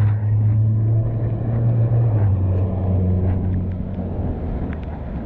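A motor vehicle's engine running close by on the street: a loud low hum whose pitch drops about two seconds in, then fades.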